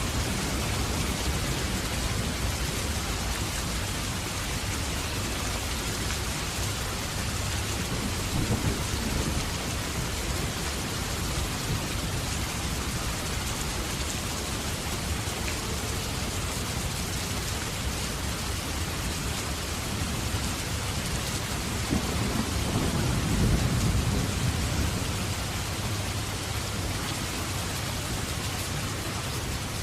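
Heavy rain falling steadily, with low rolls of thunder about eight seconds in and again, louder and longer, a little past twenty seconds.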